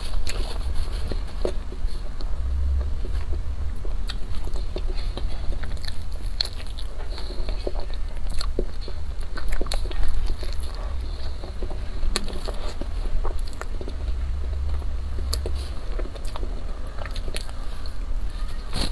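A person biting into and chewing a chocolate-coated snack close to a clip-on microphone, with many scattered crisp clicks over a steady low rumble.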